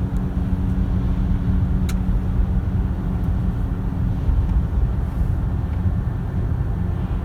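Steady road and engine noise heard inside a moving car's cabin: a low rumble with a faint constant hum, and one brief click about two seconds in.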